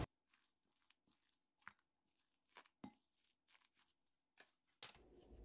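Near silence, broken by a few faint, short clicks of a wooden spoon stirring seasoned dried radish in a glass bowl. A faint hiss returns near the end.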